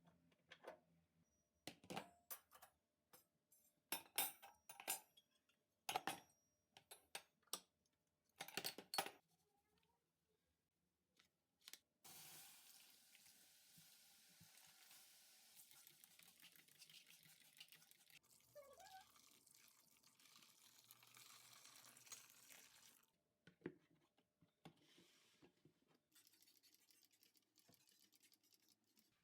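Kitchen cleaning sounds: a run of sharp clinks and knocks, like dishes and utensils being handled, then about eleven seconds of steady hiss from about twelve seconds in, then a few more knocks near the end.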